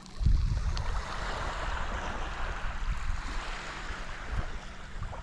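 Waves washing in on a rocky shore: a rushing swell of water that builds about a second in and fades near the end, with wind gusting against the microphone.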